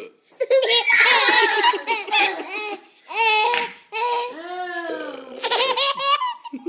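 A baby laughing hard in repeated bursts of high-pitched belly laughter, broken by short pauses. About four seconds in comes one drawn-out vocal sound that swoops down in pitch.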